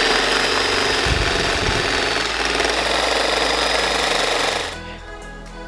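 Handheld electric grinder running against a truck's steel frame: a loud, steady grinding rush with a high whine. It stops near the end, leaving background music.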